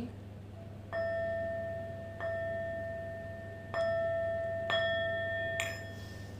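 A metal chime struck four times, about a second apart. Each strike rings with the same clear tone and slowly decays into the next. Near the end the ringing stops after a short knock.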